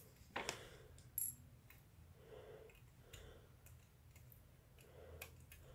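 Faint scattered clicks and taps of plastic model-kit sprues being handled and cut with hobby nippers; the two sharpest clicks come about half a second and about a second in.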